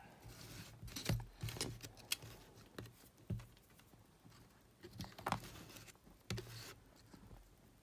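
A series of faint clicks and taps, spaced about half a second to a second apart, as the small plastic cassette-recorder body is turned over and worked with metal tweezers.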